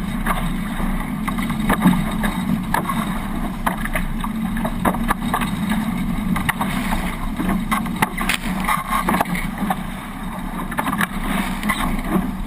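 Water rushing past the hulls of a Hobie 18 catamaran under sail, with wind buffeting the microphone and many short, sharp hits throughout.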